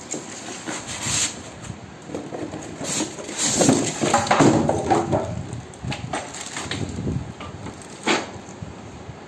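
Cardboard carton and packing being handled as a plastic-wrapped glass-top cooktop is slid out of its box: irregular scraping and rustling of cardboard and plastic wrap, busiest in the middle, with a sharp knock a little after eight seconds in.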